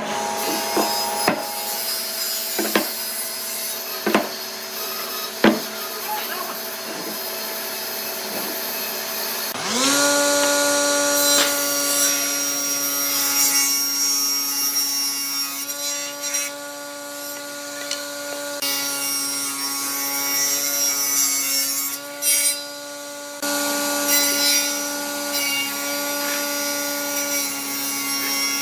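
Four sharp knocks about a second and a half apart, then a table saw spinning up with a rising whine and running steadily as its blade rips through thick hardwood, with a short break about two-thirds of the way through.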